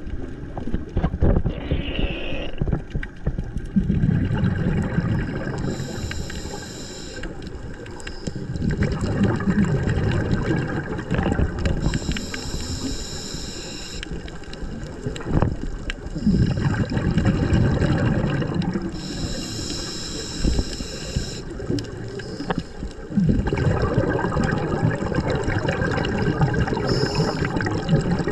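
Scuba diver breathing through a regulator underwater. A hissing inhale alternates with a rush of gurgling exhaled bubbles, about four breaths repeating roughly every seven seconds.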